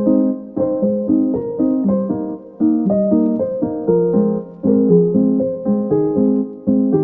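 Lofi background music: mellow electric piano chords repeating in a slow, even rhythm.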